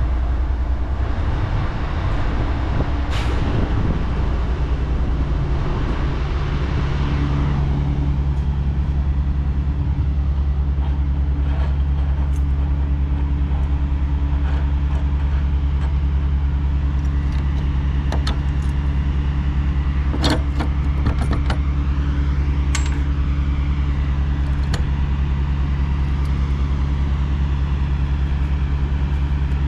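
Big truck's diesel engine running steadily with a low drone, heard from inside the cab. A rushing road noise dies away about a quarter of the way in, leaving mostly the engine. Scattered sharp clicks and rattles come in the second half.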